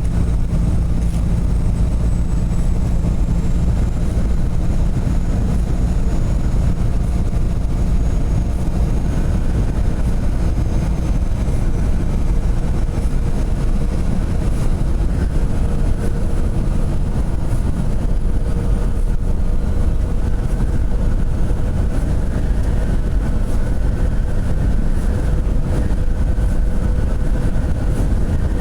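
Tractor-trailer driving down the highway: a steady drone of engine and tyre noise, with a faint steady whine over it.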